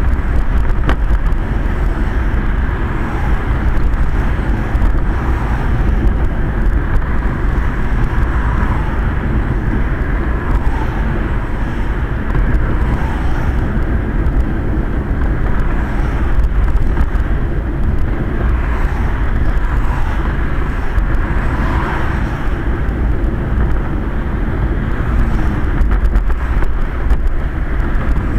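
Steady, loud rumble of a Quest velomobile rolling on a wet road, with tyre and road noise carried through its closed shell and hood.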